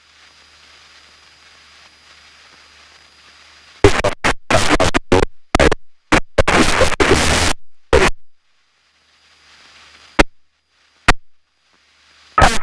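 Harsh crackling static on the aircraft's headset audio, cutting in and out in choppy bursts for several seconds after a faint hiss, then two single sharp clicks and more crackle at the end.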